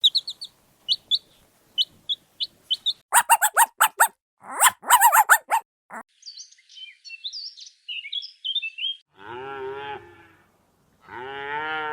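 A run of farm-animal calls: a chick's short high peeps for the first few seconds, two loud whinnies from a horse, soft bird twittering, then two long lowing calls from a cow near the end.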